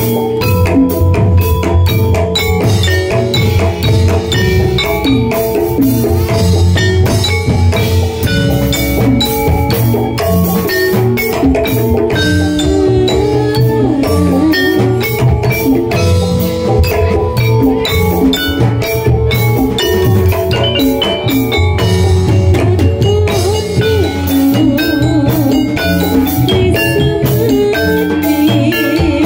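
Javanese gamelan played live: metallophones ringing out a melody over dense kendang drumming.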